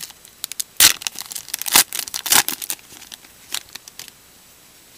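Shiny foil wrapper of a 2013 Panini Elite Extra Edition trading-card pack being torn open and crinkled by hand: a quick run of sharp crackles, loudest about one, two and two and a half seconds in, then a few softer rustles.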